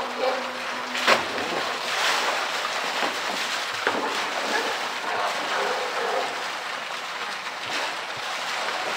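Pool water splashing and sloshing as a polar bear swims and plays with a floating blue plastic barrel, with a sharp knock about a second in and a smaller click a few seconds later.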